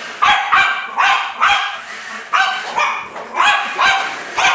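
A jug (pug–Jack Russell cross) puppy barking repeatedly, about nine high barks, mostly in quick pairs.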